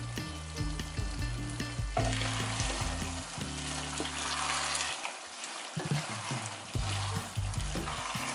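Chicken simmering in red glutinous rice wine lees sauce, sizzling and bubbling in a pot as it is stirred with a wooden spatula; the sizzle grows louder about two seconds in. Soft background music plays underneath.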